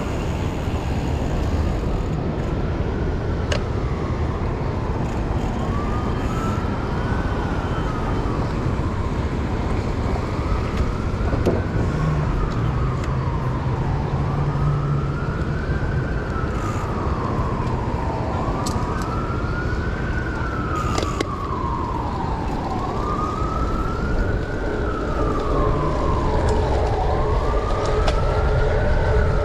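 An emergency vehicle's siren wailing, its pitch rising and falling slowly, one cycle about every four seconds, over a steady rush of wind and traffic noise.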